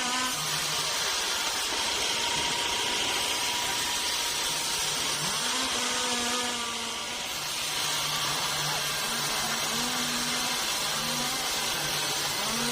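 Sawmill power saw running steadily, with a motor hum underneath that shifts in pitch several times.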